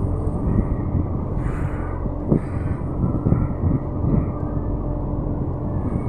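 Ship underway at sea: a steady low engine drone under the rush of water along the hull, with irregular gusts of wind on the microphone.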